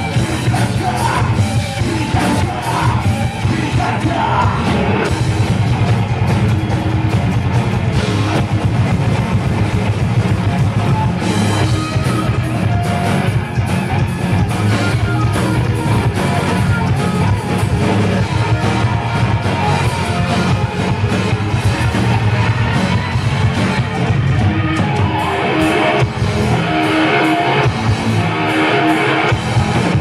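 A live thrash metal band playing loud: distorted electric guitars, bass guitar and drum kit, with shouted vocals in the first few seconds.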